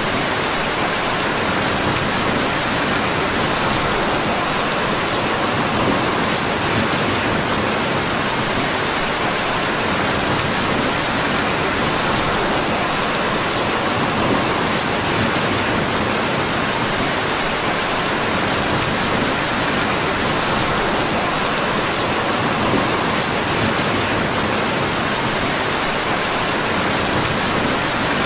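Steady rain falling on a surface: an even, unbroken hiss.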